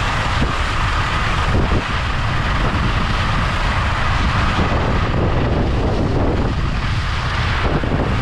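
Wind rushing over the microphone of a camera carried by a skier moving fast downhill, with the steady hiss of skis carving over groomed snow. The high hiss eases a little about five seconds in.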